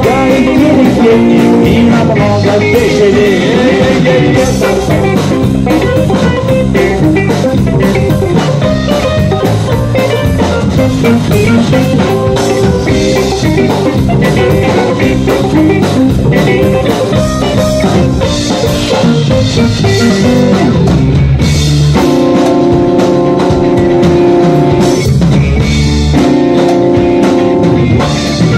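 Live rock band playing an instrumental break: electric guitar and drum kit with synthesizer keyboards. Held keyboard chords come in over the beat near the end.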